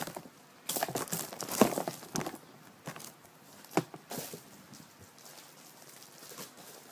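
Rustling, crinkling and clicking handling noises, busiest in the first couple of seconds, with one sharp click near the middle and fainter rustling after it.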